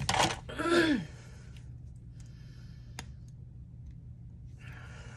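A woman's short sigh-like vocal sound, rising then falling in pitch, then a quiet stretch with a single light click about three seconds in as she opens a mascara tube.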